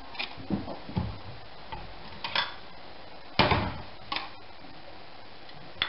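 Handling noise: a handful of light knocks and clicks as foil cups and a ceramic bowl are picked up and set down on a countertop, the loudest knock a little past the middle.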